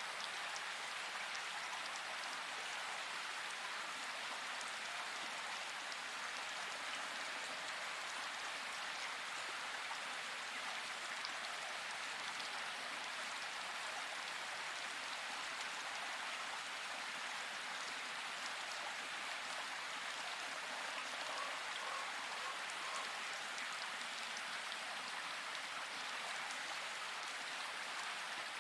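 Steady rain falling in a forest: an even hiss of rainfall flecked with the fine patter of individual drops, unchanging throughout.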